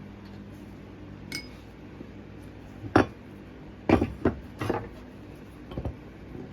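Hard objects knocking and clinking as they are handled during casting-mold preparation. A light ringing tick comes about a second in, a sharp knock about three seconds in, then a quick run of three more knocks and a softer pair near the end.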